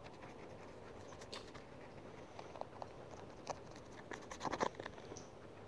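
Faint taps and scratches of a fingertip on a phone touchscreen during brush strokes, with scattered soft clicks that come closest together a little past four seconds in.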